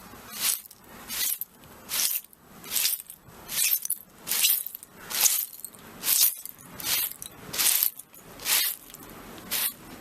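Broom sweeping broken glass shards: a steady rhythm of sweeps, a little more than one a second, each stroke a crunching scrape of glass fragments over the floor.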